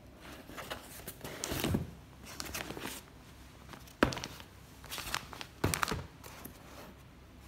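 Cardboard box and brown paper envelopes being handled: paper rustling and crinkling, with a sharp knock about four seconds in, the loudest sound, and another knock near six seconds.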